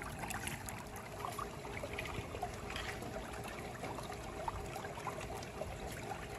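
Water trickling softly in a small plastic pool, a steady wash with no pauses.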